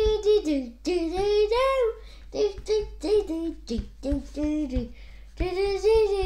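A child singing a sing-song tune in short phrases, some notes held.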